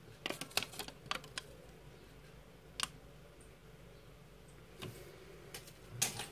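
Paper instruction leaflet crackling and rustling in the hands as it is turned over and unfolded: a quick run of sharp crackles in the first second and a half, then a few scattered ones later.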